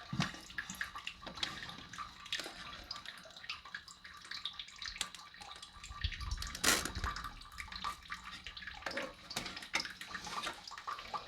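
Water splashing in a toilet tank, with scattered clicks and knocks of a plastic Fluidmaster fill valve being seated against the porcelain. The loudest knock comes about six and a half seconds in.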